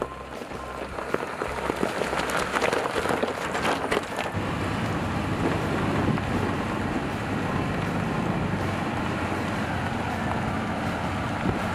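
Jeep Gladiator pickup driving slowly over a rocky gravel trail, its tyres crunching and crackling on the stones. About four seconds in this gives way to a steady low rumble of engine and tyres on a dirt road as the truck tows a travel trailer.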